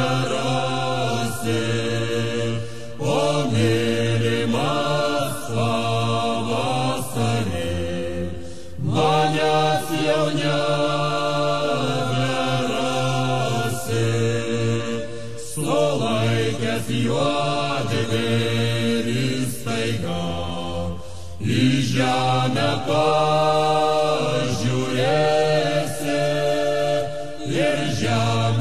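A Lithuanian folk-style song sung slowly by a woman's voice with an ensemble, over a steady low drone. The melody comes in long phrases with short breaks between them.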